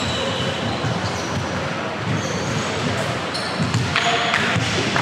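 Basketball bouncing on a court during play, with short high squeaks and voices over a steady background of gym noise.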